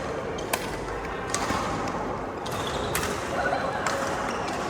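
Badminton rally: rackets striking the shuttlecock, four sharp cracks about a second apart, over steady hall noise, with short high squeaks of shoes on the court.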